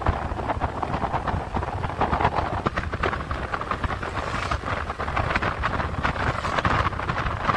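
Wind buffeting the microphone of a moving vehicle, over steady road and engine noise.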